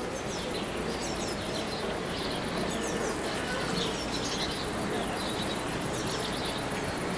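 Birds chirping in short, repeated calls over a steady background hum of outdoor ambience.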